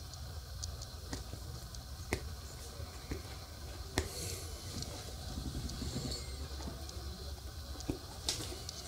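Corgi puppies chewing and tugging at trouser fabric: soft scuffing and rustling, with a few sharp clicks, the clearest about four seconds in and near the end.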